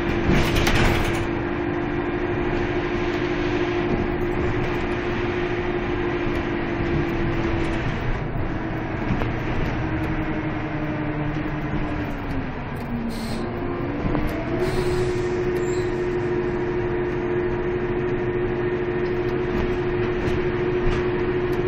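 Karosa B931 city bus running along the road, heard inside the passenger cabin: a steady engine and drivetrain drone with a whine over it. About twelve seconds in the whine sags in pitch, then about two seconds later it comes back slightly higher and holds steady. A short loud rattle comes near the start.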